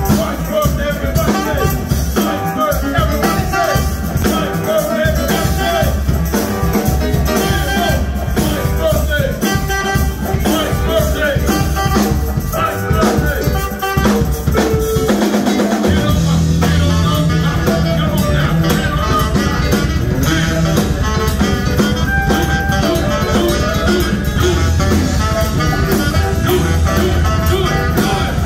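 Live band playing amplified music with drum kit, electric guitars, keyboard and saxophone. About halfway through, a heavier, steady bass groove comes in.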